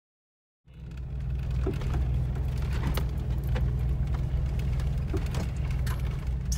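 Silent for the first half-second, then a Jeep's engine running steadily at low speed off-road, with scattered knocks and rattles as it rolls over rough grassy ground.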